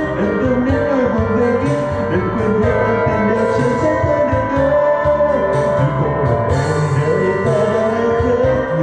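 Karaoke music: a Vietnamese ballad's instrumental backing track with a voice singing the melody over it.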